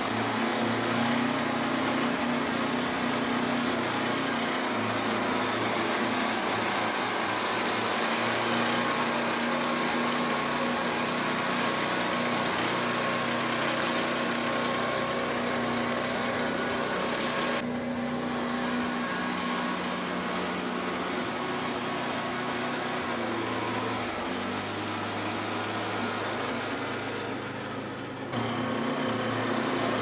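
Gas engine of a two-stage snowblower running steadily under load as its auger chews through deep snow and the chute throws it out. The engine note shifts as the machine is worked back and forth, and it dips briefly shortly before the end before coming back up.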